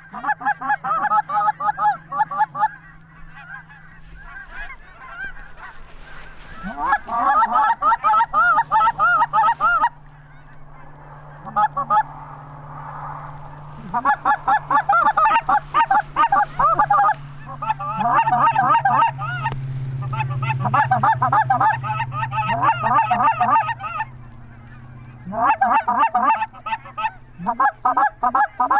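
Geese honking and clucking in rapid bouts of a few seconds each, with short pauses between, over a low steady hum.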